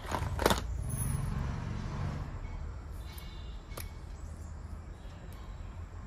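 Close handling noise: fabric rustling and a few small clicks as a lipstick is handled and uncapped, over a low steady hum.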